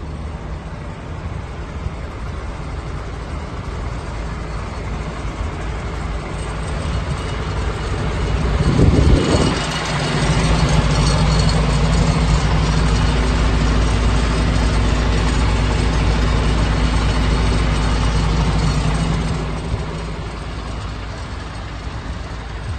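MAN TGA 26.350 tipper truck's inline-six diesel engine idling steadily. It grows louder for several seconds in the middle, after a short rushing noise about nine seconds in.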